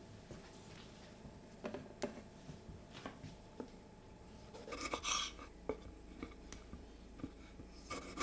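A knife cutting cherry tomatoes on a wooden chopping board: scattered light taps of the blade on the board, a louder crisp cluster about five seconds in, and a sharp loud cut near the end.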